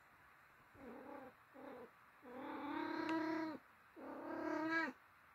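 A cat meowing four times: two short calls, then two long drawn-out calls, each dropping in pitch at its end.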